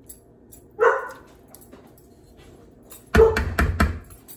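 A dog barking: one short bark about a second in, then a louder quick run of several barks near the end.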